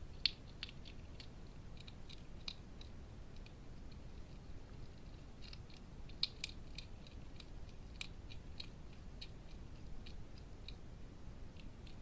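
Hedgehog chewing food from a dish: irregular short crunches and clicks that come in clusters, over a steady low hiss.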